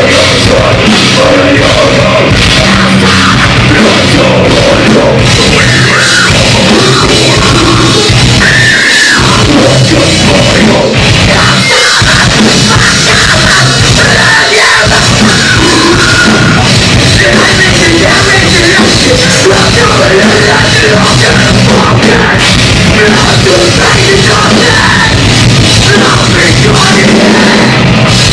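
A metalcore band playing live at full volume, with heavily distorted guitars, bass and a pounding drum kit, and screamed vocals over them.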